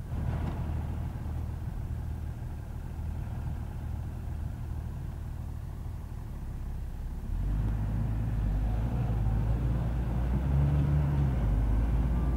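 Farm tractor's diesel engine running steadily as it drives past, getting clearly louder about seven seconds in as the tractor comes close.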